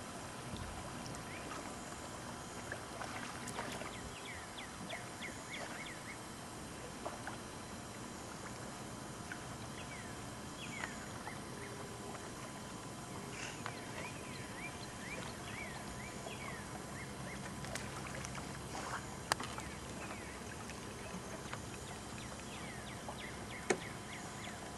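Birds chirping in many short, quick calls over steady outdoor background noise, with two sharp clicks in the second half.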